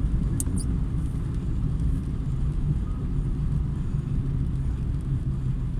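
Car driving on a rain-wet road, heard from inside: a steady low rumble of tyres and engine, with a couple of brief ticks about half a second in.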